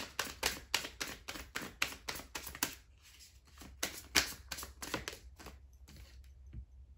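Deck of tarot cards being shuffled by hand: a quick run of crisp card clicks and slaps, about four a second, thinning out near the end.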